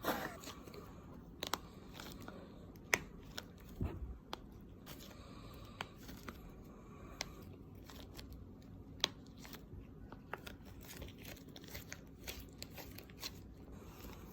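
Scattered small clicks and crinkling, rustling handling noises, as of objects or packaging being handled, irregularly spaced with a few louder clicks.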